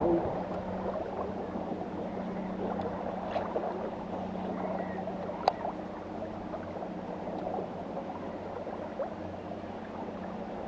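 Moving river water gurgling, over a steady low hum, with one sharp click about five and a half seconds in.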